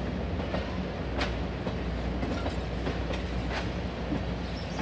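Potomac Eagle passenger coaches rolling across a steel trestle bridge: a steady low rumble with a few sharp clicks of wheels passing over rail joints, about two seconds apart.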